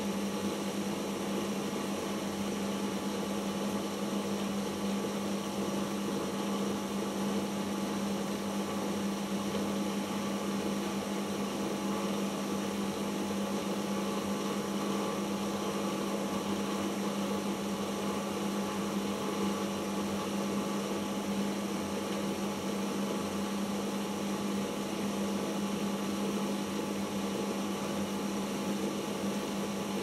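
Siemens IQ1430 front-loading washing machine in its 1400 rpm final spin, the drum and motor running at steady high speed with a constant hum and whine.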